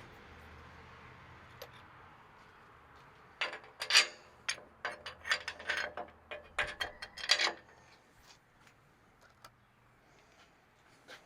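Tools and bracket hardware being worked on an exhaust mount: a run of irregular clicks and knocks lasting about four seconds in the middle, loudest near the start of the run. A faint low hum under them stops a little after the knocks end.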